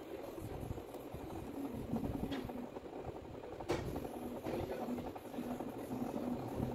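Steady low background rumble and hum, with one sharp click a little over halfway through.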